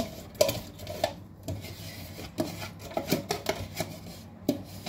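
Thick yogurt being scraped out of a plastic tub into a blender jug: irregular clicks, knocks and scrapes of a utensil against the tub.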